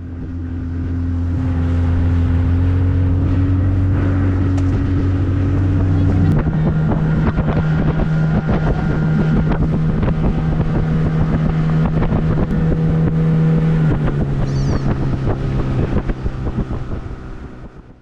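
A boat motor running close by, steady at first, then shifting up to a higher pitch about six seconds in, settling again later and fading away near the end.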